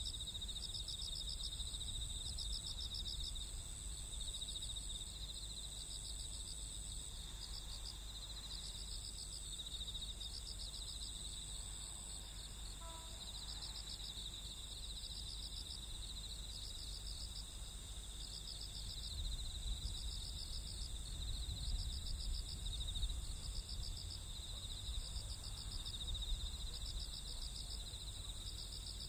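Night insects chirping: a steady high-pitched trill with a pulsed chirp repeating about once a second, over a low rumble that grows louder in the second half.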